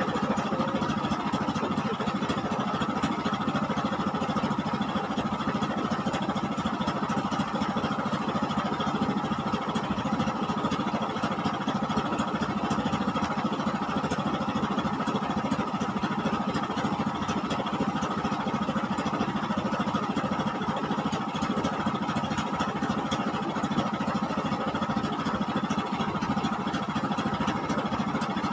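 An engine running steadily, an even drone that holds the same pitch and level.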